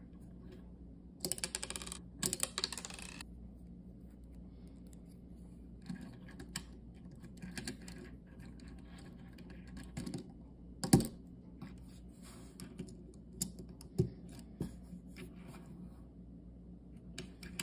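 Lego bricks being handled and pressed together: light plastic clicks and rattles. There is a dense run of rattling between about one and three seconds in, and a sharp snap about eleven seconds in, the loudest sound here.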